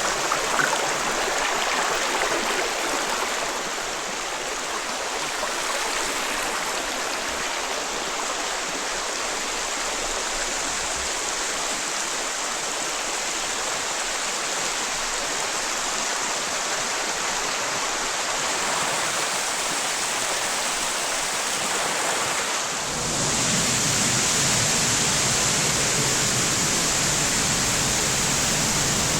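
Mountain creek water rushing steadily over rocks. About 23 seconds in it switches suddenly to a louder, fuller rush of water.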